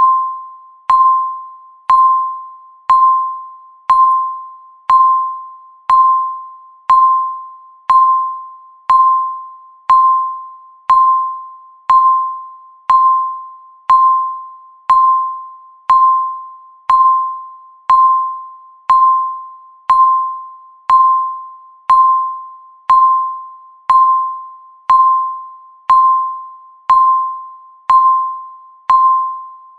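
Countdown timer beeping once a second: about thirty identical single-pitch electronic beeps, each starting sharply and dying away before the next.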